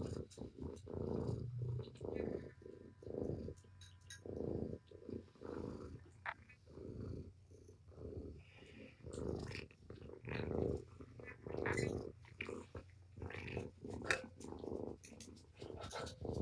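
Mother cat purring hard while being stroked, a motor-like rumble that swells and fades with each breath, about once a second.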